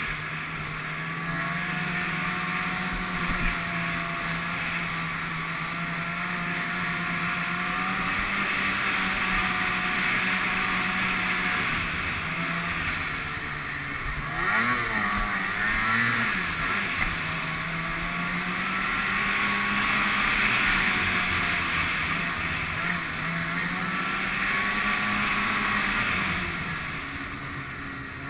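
Ski-Doo snowmobile engine running under way, with a hiss of track and wind noise; about halfway through the revs swing up and down a few times, then settle back to a steady pitch.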